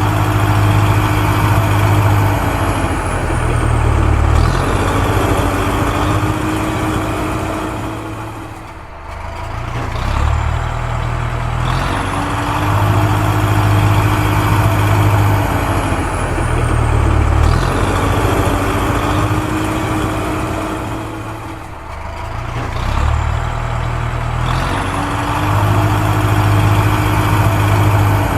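Heavy vehicle engine sound, a loud steady rumble that repeats as a loop every dozen seconds or so, with brief dips about nine seconds in and again near twenty-two seconds.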